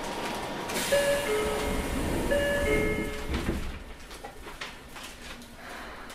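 Two-tone electronic chime sounding twice inside a standing Tokyo Metro 03 series train, over a low rumble, then light knocks as the sliding doors close.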